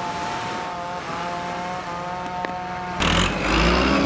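Farm tractor engine running steadily, with a constant whine over its rumble. About three seconds in, the sound jumps to a louder, deeper engine rumble.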